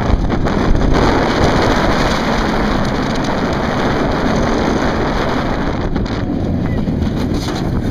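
Loud, steady rush of wind over the microphone as a roller coaster train runs at speed, mixed with the train's rumble.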